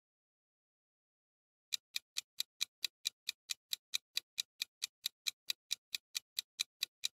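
Countdown-timer sound effect of a clock ticking fast and evenly, about four to five ticks a second, starting just under two seconds in after silence; it marks the time left to answer the quiz question.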